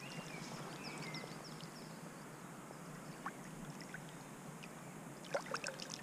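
Birds chirping over a faint river hush; a little after five seconds a few quick splashes as a hooked brown trout thrashes at the surface beside the landing net.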